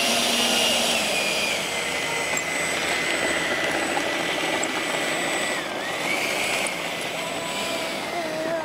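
70mm electric ducted fan of an RC Yak 130 model jet running on the ground as the jet taxis. A steady high whine over a rushing air sound, which dips briefly in pitch a little past halfway and then comes back up.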